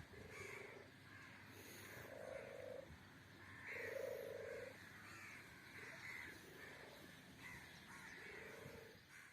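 Kitten giving a few short, quiet calls, four of them, with the loudest about four seconds in.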